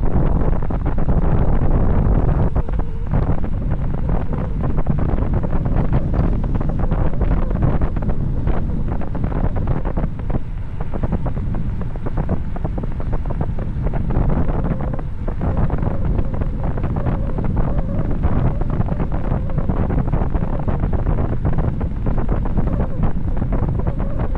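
Heavy wind buffeting the microphone of a camera on a bicycle descending at speed: a loud, steady rush strongest in the low end, flickering constantly.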